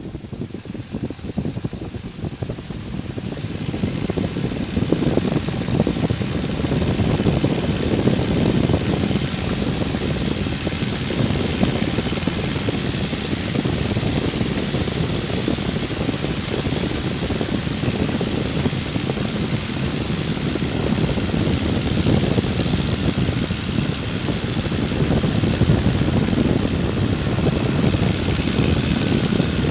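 De Havilland Tiger Moth's Gipsy Major four-cylinder engine opening up to full power over the first few seconds, then running steadily through the take-off roll, with a growing rush of air as speed builds.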